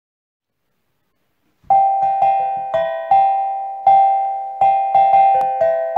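Silence for about the first second and a half, then intro music starts: a slow melody of single high notes on a piano-like keyboard instrument, each note struck and fading.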